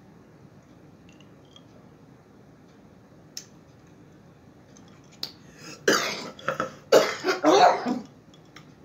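A woman coughing hard several times in a row from about five seconds in, choking on a sip of mimosa that went down the wrong pipe.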